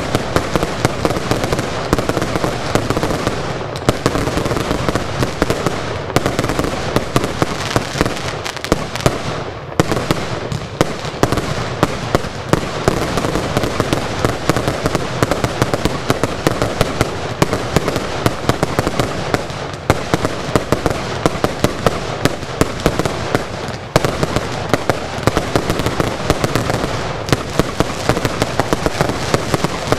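A dense, unbroken barrage of fireworks: rapid shots and aerial bursts follow one another many times a second, with crackling between them, easing only briefly twice.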